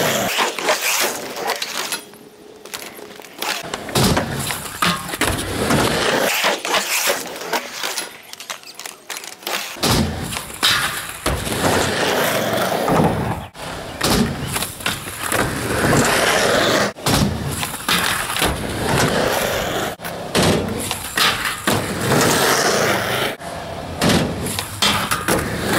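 Skateboard wheels rolling on concrete, mixed with the clatter and smacks of the board hitting ramps and the ground.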